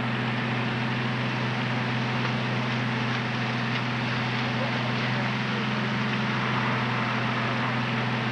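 Fire apparatus engine running steadily, a loud even drone with a broad hiss over it.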